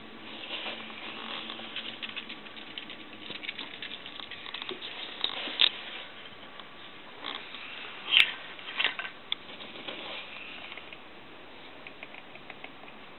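Bantam chickens scratching and pecking over dry gravel and leaf litter: a light, scattered patter of small ticks, with a few sharper clicks in the middle, the loudest about two-thirds of the way through.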